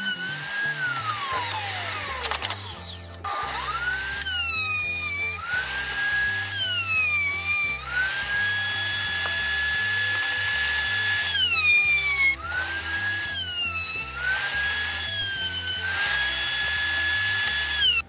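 Table-mounted electric router cutting grooves in wooden blanks: a loud, high motor whine that sags in pitch each time the bit bites into the wood and climbs back between passes, over and over.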